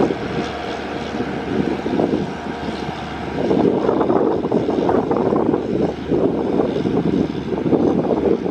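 Diesel locomotive running with its train, a steady mechanical rumble that grows louder about three and a half seconds in.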